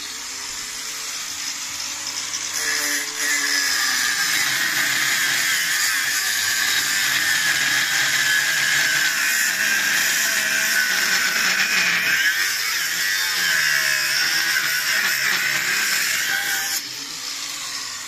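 Angle grinder cutting through a cast-iron drain pipe: a steady high-pitched grinding screech. It starts abruptly, gets louder about three seconds in as the disc bites harder, and eases back a second or so before the end.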